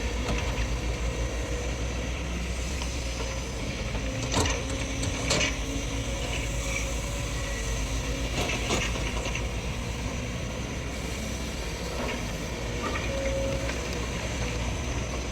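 SANY hydraulic excavators' diesel engines running steadily under load while digging and passing soil, with a few sharp knocks about four, five and nine seconds in.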